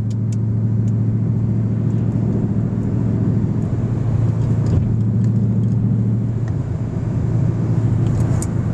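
A car driving, heard from inside the cabin: a steady low drone of engine and road noise, with a few faint clicks.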